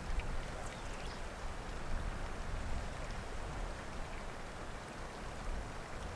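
Wind on the microphone: a steady hiss with low, uneven buffeting that swells and eases in gusts. A few faint, short high chirps sit above it.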